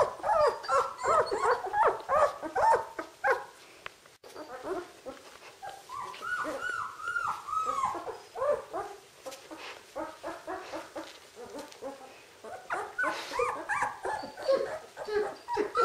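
13-day-old Czechoslovakian wolfdog puppies whimpering and squealing, many short high calls overlapping. The calls thin out for a moment about four seconds in, come back as a string of rising-and-falling whines, and grow busy again near the end.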